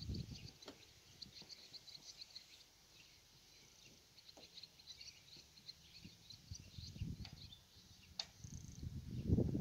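Faint background birdsong: runs of rapid, high chirps. Low rumbles come and go, the loudest near the end, with a single sharp click shortly before it.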